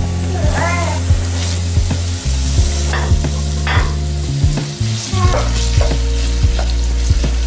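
Onion frying and sizzling in oil in a steel pan, with a wooden spoon scraping and knocking against the pan about twice a second as it is stirred. Boiled wild asparagus is then stirred into the hot oil, all over a low steady hum.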